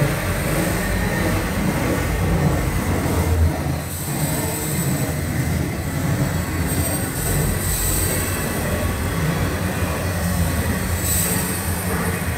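Train of railway boxcars rolling past close by: a steady heavy rumble of steel wheels on the rails, with brief high-pitched wheel noise now and then.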